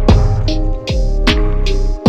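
Background music with a steady beat: drum hits about every 0.4 seconds over held notes and deep bass.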